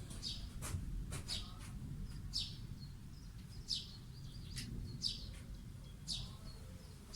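A bird calling with short, high, falling chirps, about one a second, over a steady low rumble, with a few faint clicks.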